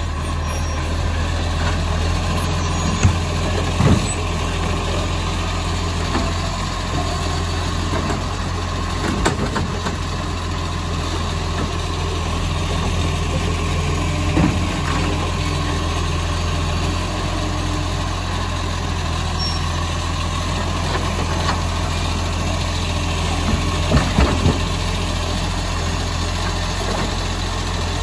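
Iveco Acco side-loader garbage truck's diesel engine idling steadily while its automated side arm grabs and lifts a bin, with a few sharp clunks scattered through.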